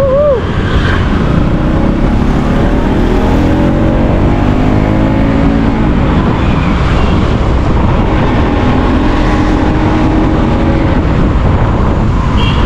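Road traffic heard while moving through city streets: a steady low rumble of wind and road noise, with vehicle engines rising in pitch and then falling away. A brief high tone, like a horn, sounds near the end.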